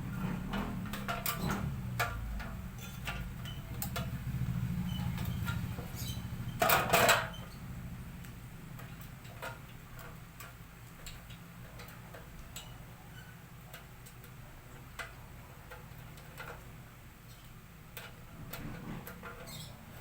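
Scattered light clicks and taps, with a low hum for the first seven seconds and a louder, noisier burst about seven seconds in.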